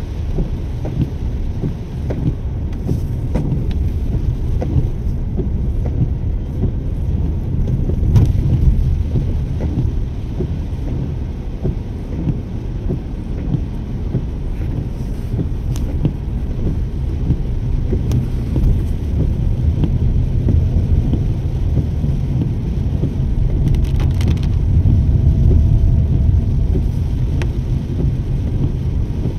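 Vehicle on the move in the rain: a steady low road-and-wind rumble with a few light ticks scattered through it.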